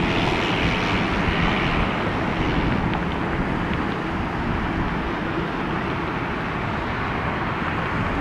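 Boeing 737-700 jet engines running, a steady rumble with a hiss that eases after about two seconds.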